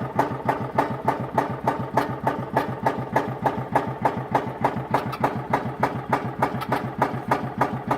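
Tractor engine idling with a steady, even chug of about four beats a second.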